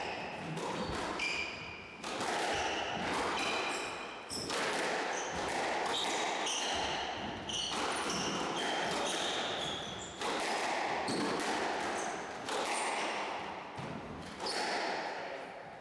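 A squash rally: repeated sharp smacks of the ball off the rackets and the court walls, ringing in the enclosed court, with short high squeaks of shoes on the wooden floor.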